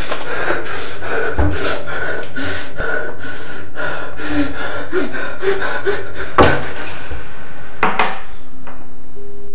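Loud, dense scratching and rubbing noise with a steady high whine underneath, broken by a sharp crack about six and a half seconds in, then thinning out near the end.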